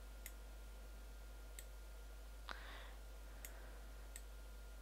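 A few faint, sharp computer mouse clicks, about five spread over the few seconds, with one slightly louder click about halfway through, over a steady faint electrical hum.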